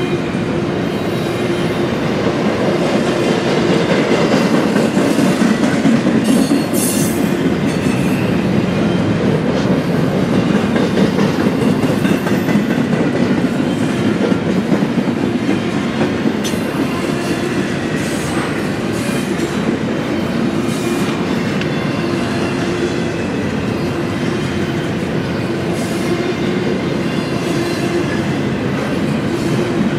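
Double-stack container train's well cars rolling steadily past, the continuous rumble of steel wheels on rail, with a few brief high squeaks from the wheels.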